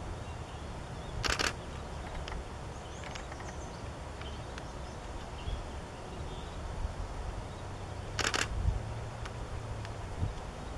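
Outdoor ambience with a steady low wind rumble on the microphone. It is broken twice, about a second in and again about seven seconds later, by a short hissing burst.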